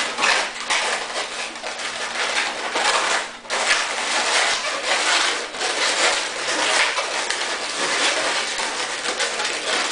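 Latex modelling balloons being twisted and worked by hand, the rubber rubbing and squeaking almost without a break, with a short lull about three and a half seconds in.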